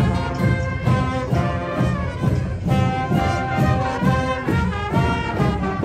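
Marching band playing a tune in the street: brass instruments, sousaphones among them, over a steady beat of marching drums.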